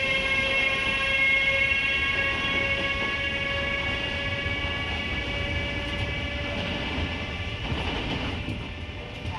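Siemens Vectron electric locomotive pulling a loaded freight train away from a standstill, its traction converters giving a steady whine of several tones that slowly fades as it draws away. Underneath it runs the low rumble of open freight wagons rolling past, with a few clanks later on.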